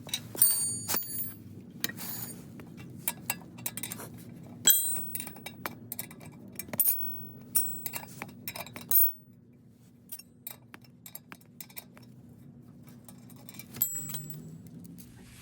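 Metal parts and hand tools clinking and clicking, many of the knocks ringing briefly, over a steady low hum that stops about nine seconds in.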